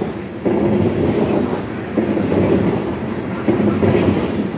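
Freight train of tank cars rolling past close by, its wheels clattering on the rails, the clatter surging about every second and a half.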